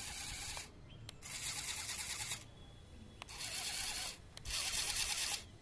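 Homemade 4x4 RC car's electric drive motor and gear drivetrain whirring as its wheels spin freely off the ground, in short bursts of one to one and a half seconds, four times, with a click at each start and stop.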